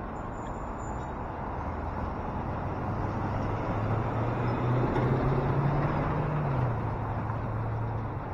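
Box truck engine running as it pulls through the intersection, its hum climbing in pitch and growing louder about halfway through, then dropping back, over steady city traffic noise.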